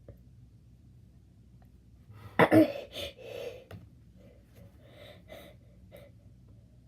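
A person's sudden sneeze about two and a half seconds in, followed by breathy gasps and a few quieter short breaths.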